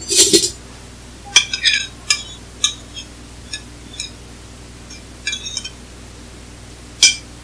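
Metal spoon clinking and scraping against a plate while minced meat is scraped off it into a plastic bowl: a scattered series of short, sharp clinks, the loudest at the start and again near the end.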